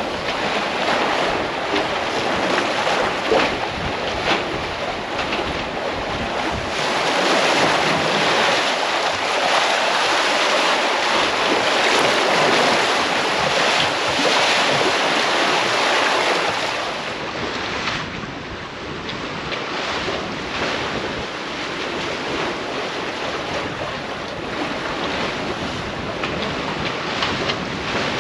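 Sea water rushing and splashing along the hull of a Leopard 45 sailing catamaran under sail, with wind buffeting the microphone. The rush is loudest for a stretch in the middle, then eases a little.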